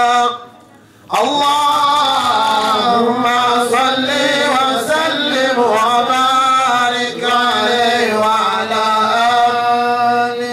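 A man chanting an unaccompanied Islamic devotional song (mawlid qasida) into a microphone, with long held, ornamented notes. He breaks off for a breath just under a second in, then sings on.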